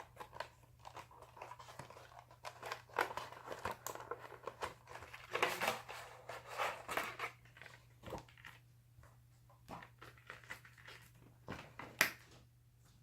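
Packaging of a trading-card starter deck being handled and opened: irregular rustling and crinkling of card and paper with scattered clicks and taps, busiest in the middle, and one sharp tap near the end.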